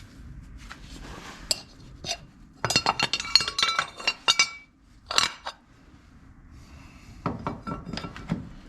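Small metal parts and hand tools clinking and rattling in three clusters of sharp, ringing clicks, the longest lasting about two seconds.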